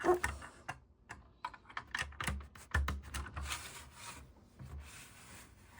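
Plastic LEGO bricks clicking and clattering as they are handled and picked through, a quick run of small sharp clicks followed by a couple of softer scraping sounds.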